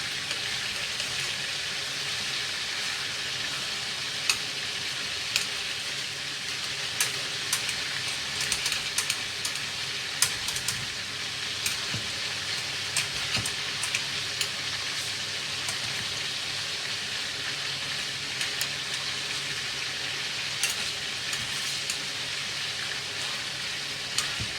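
Pieces of duck frying in hot oil in a pan: a steady sizzle with sharp pops scattered through it.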